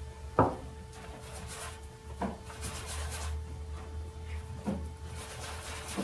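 Painting tools knocking as they are handled at the easel: three knocks, the first sharp and loudest about half a second in, the others a couple of seconds apart. A steady faint hum runs underneath.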